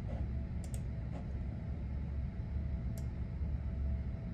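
A few scattered computer keyboard keystrokes, single sharp clicks, over a steady low hum.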